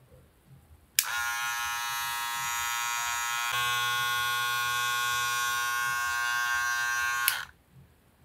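Monster Clippers hair clipper with a fade blade switched on with a click, its motor and blade running with a steady buzz that shifts slightly in pitch partway through, then switched off with a click.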